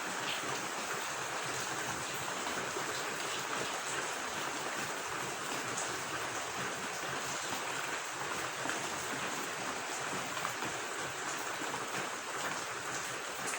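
Steady rain falling, heard as a constant, even hiss with faint scattered drop ticks, blended with running water.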